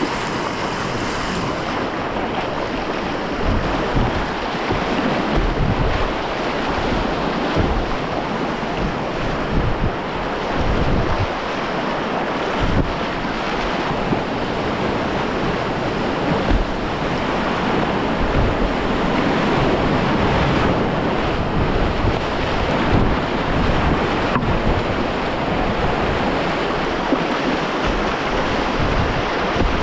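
Continuous rushing of river whitewater rapids heard from a kayak, with paddle splashes and low buffeting on the microphone.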